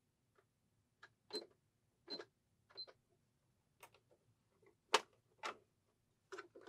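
Faint, irregular clicks and taps from fabric being handled and set in place at a sewing machine, with one louder knock about five seconds in.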